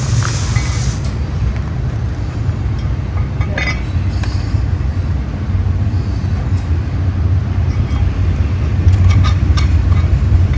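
A loud, steady low machine hum, with a few light metallic clinks and taps over it.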